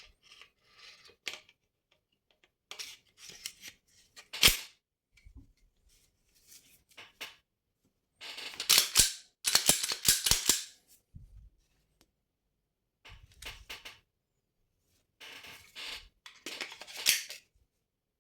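Glock 34 Gen 5 pistol parts being fitted back together: metal sliding and clicking, with one sharp snap about 4.5 s in and two longer runs of rapid clicking and scraping, around the middle and near the end.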